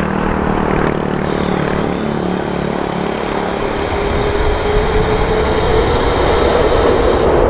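Jet engines of an Airbus A330-243 rolling out just after touchdown: a steady roar with a whine. About halfway through, a tone rises and the noise grows louder.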